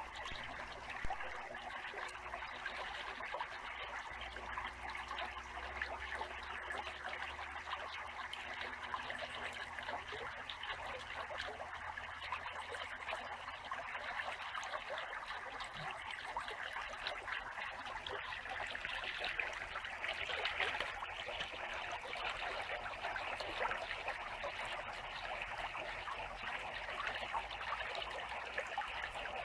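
Small clear-water stream flowing over stones, a steady trickling and burbling.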